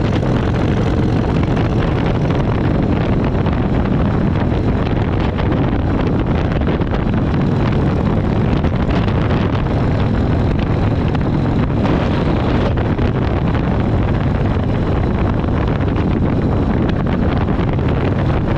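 Harley-Davidson motorcycle's V-twin engine running steadily at cruising speed on the road, mixed with wind rushing over the microphone.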